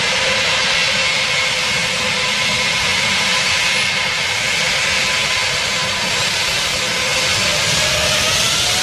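Airbus A380's jet engines running at taxi power: a steady loud rush with a whine of several tones, which rises in pitch near the end.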